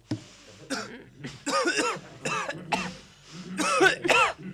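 A voice making a run of short coughing, hacking sounds, some of them pitched and arching up and down in pitch, the loudest near the end.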